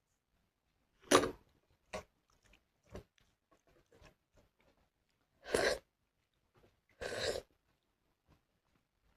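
Close-up eating sounds of a person chewing and biting food, with a few short separate bites and chews, and two longer, louder noisy mouth sounds, one halfway through and one near the end.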